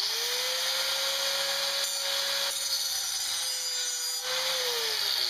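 Angle grinder spinning up and grinding along the bottom edge of a steel lawn mower blade, a steady motor whine over a harsh hiss; near the end the motor's pitch begins to fall as it winds down.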